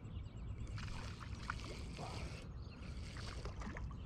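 Water splashing and trickling over a low, steady rumble.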